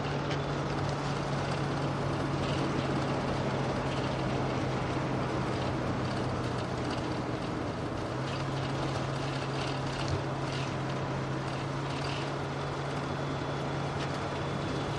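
Motorhome driving on a highway, heard from inside: a steady engine hum over constant road and tyre noise.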